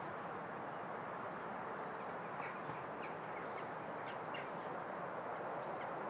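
Steady rushing outdoor background noise with faint, short bird chirps scattered through it.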